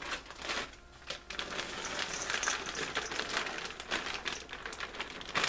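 Thawed shredded hash browns poured from a plastic bag into a stainless steel bowl: the bag crinkles and the potato shreds slide out. This makes a dense crackling rustle from about a second in.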